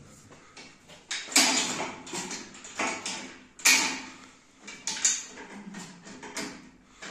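Pec deck (butterfly) machine being handled and adjusted: several sharp clanks and knocks from its swing arm and frame, spaced a second or so apart.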